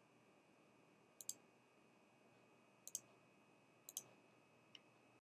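Computer mouse button clicking: three quick press-and-release double ticks spaced a second or so apart, then a fainter single tick near the end, over near silence.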